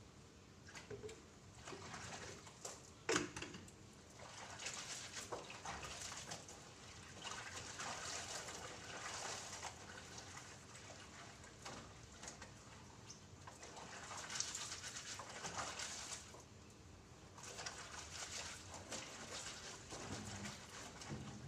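Clothes being hand-washed in a plastic basin: wet fabric scrubbed and squeezed with sloshing water, in repeated bouts of a second or two, with one sharp knock about three seconds in.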